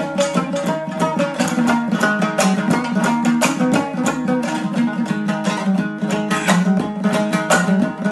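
Dambura, the Afghan long-necked two-string lute, strummed in a fast, steady rhythm as an instrumental passage with no singing.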